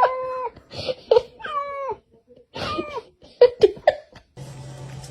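A cat meowing, a string of about six short calls that bend and fall in pitch. Near the end they stop and a steady low hum takes over.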